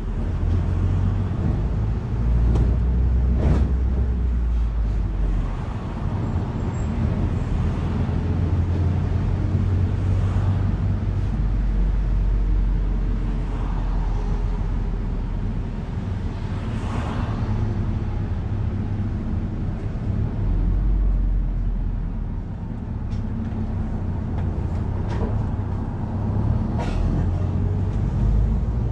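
A London bus in motion, heard from on board: its engine and road noise, with the low engine hum rising and falling as it pulls away and slows, and a few sharp knocks and rattles from the bodywork.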